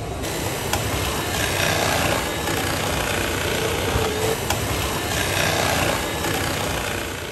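Electric food processor running, its motor whirring steadily as cucumber is pushed through the slicing disc.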